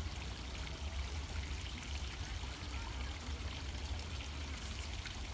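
Steady outdoor rushing noise with a heavy, fluttering low rumble underneath.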